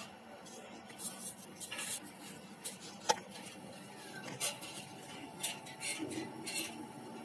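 Clicks, scrapes and rustles of hands handling pigeons in a wire nest box, with a sharp click about three seconds in. Low pigeon cooing starts near the end.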